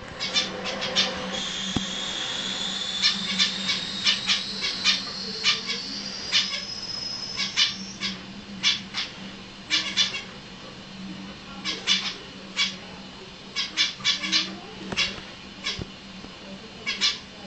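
Caged finches calling: short, high chirps, singly and in quick clusters, scattered throughout. A thin whistle slowly rises in pitch from about a second in until about seven seconds, over a faint steady low hum.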